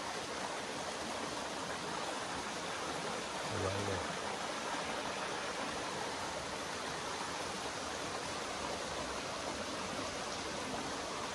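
Steady rushing of a small stream running over rock into a pool.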